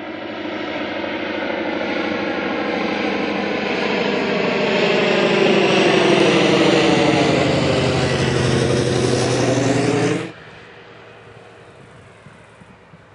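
Piston-engined propeller aircraft passing close, its engine and propeller growing louder as it nears, with the pitch drooping slightly as it goes by. The sound cuts off suddenly about ten seconds in.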